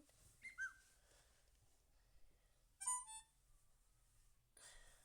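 Short electronic phone notification tones: a quick falling chirp about half a second in, then a brief bright chime of a few pitched blips about three seconds in, with quiet between.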